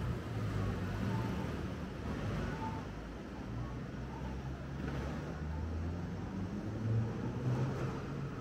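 Road traffic: vehicle engines running past with a steady low rumble and tyre noise.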